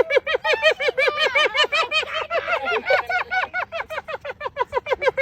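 Spotted hyenas giggling: a fast, even run of short rising-and-falling whoops, about six a second, with a higher series overlapping the lower one in the middle.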